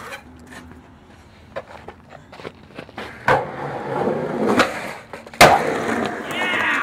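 Skateboard wheels rolling on concrete, then a sharp pop of the tail. Roughly a second later comes a loud slap as the board lands off a stair set, and the wheels roll on.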